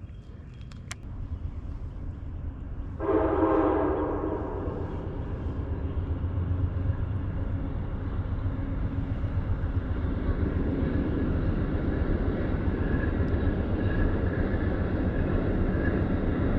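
A train's air horn sounds loudly about three seconds in, several steady tones held together. Under it the low rumble of a passing train builds and keeps going.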